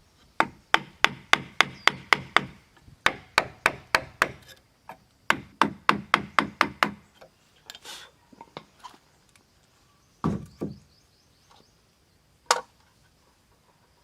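A hand tool striking wood in three quick runs of blows, about four a second, then a few scattered knocks, a heavier thud, and one sharp crack near the end.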